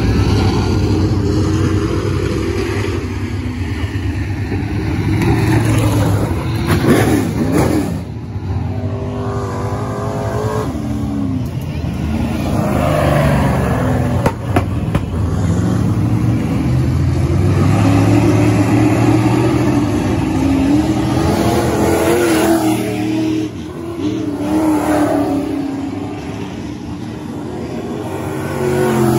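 Dirt-track race cars running laps on a clay oval, their engines rising and falling in pitch as they accelerate through the turns and pass by one after another.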